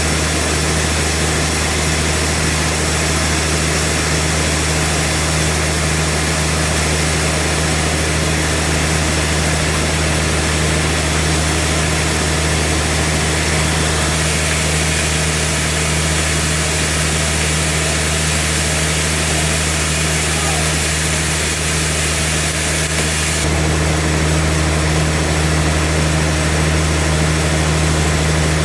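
Sawmill machinery running steadily: a constant low engine hum under an even mechanical noise. The tone shifts near the end, with the hiss thinning and the low hum growing a little stronger.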